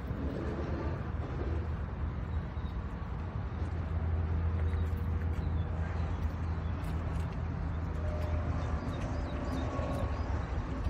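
Cummins 6BTA turbo-diesel inline-six of a 1999 Ottawa Commando 30 yard spotter truck idling steadily.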